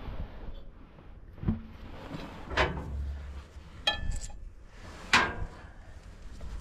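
Metal tools and fittings knocking and clinking: about four separate knocks, one about four seconds in ringing briefly like struck steel, as a socket extension and hydraulic hose fittings are worked into place.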